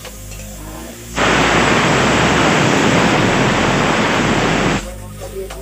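A loud burst of even, static-like hiss that starts abruptly about a second in and cuts off suddenly near the end, over quiet background music.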